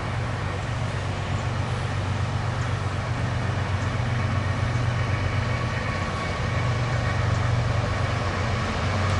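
Diesel freight locomotive approaching at the head of an empty autorack train: a low, steady engine drone that grows gradually louder.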